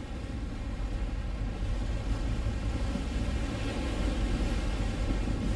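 Steady low rumble of a pilot boat under way alongside a container ship: engine and rushing water, slowly getting louder.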